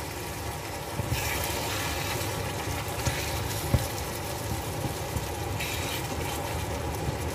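A pot of food boiling on a gas stove: steady bubbling with the burner's low rumble, and a single light click about halfway through.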